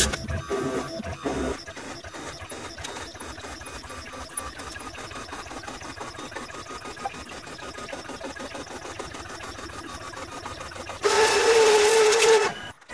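AccTek AKG6090 CNC router drilling holes into a particle-board bed, its 3 kW spindle and axis drives making a steady, fast-ticking whir. About eleven seconds in, a vacuum cleaner switches on, much louder with a steady whine, and cuts off shortly before the end.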